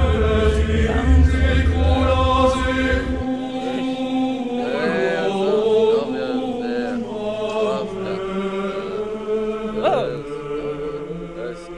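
Background music with sustained, chant-like voices over held tones. A deep bass drops out about three seconds in.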